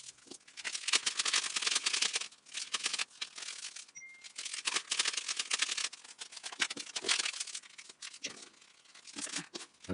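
Paper banknotes rustling and crinkling as a stack of cash is handled and counted by hand.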